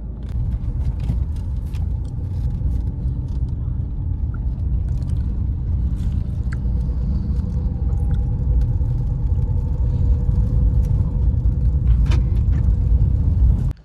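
Steady low road and engine rumble inside a moving car's cabin, with a few light clicks.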